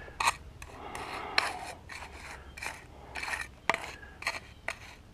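A pointed steel trowel scraping and scooping loose cold-patch blacktop mix on an asphalt driveway: a string of short gritty scrapes with sharp clicks of metal on stone.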